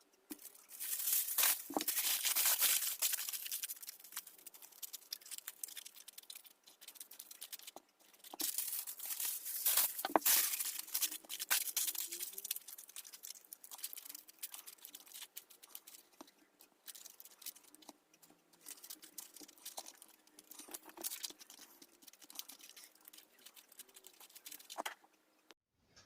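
Aluminium foil being crumpled and pressed into shape by hand, crackling in loud bursts from about one to four seconds in and again from about eight to twelve seconds, with quieter scattered crinkles in between.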